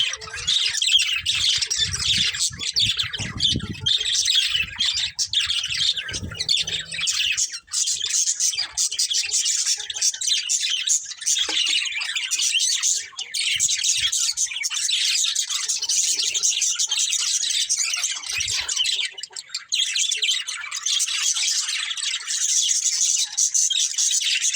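Budgerigars chirping and chattering without a break, a dense stream of high chirps, with a low rumble now and then in the first few seconds.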